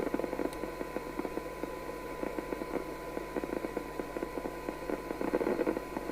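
Maxcom 7E CB radio's receiver reproducing a steady test tone buried in crackling, hissy noise. The signal generator's input is turned down close to the set's sensitivity limit while the front end is being aligned.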